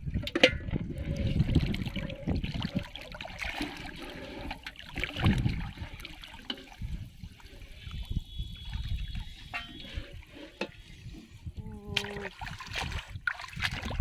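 Shallow floodwater sloshing, splashing and trickling as someone wades and pours water out of a plastic bottle trap into a metal pot, in irregular bursts.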